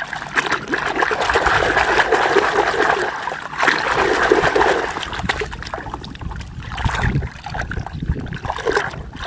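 Water splashing and trickling as hands move a muddy toy vehicle about in water, in uneven bursts.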